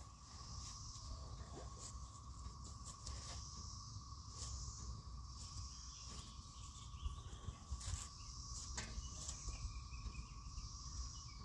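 Faint outdoor insects chirring steadily, with a few faint clicks and knocks.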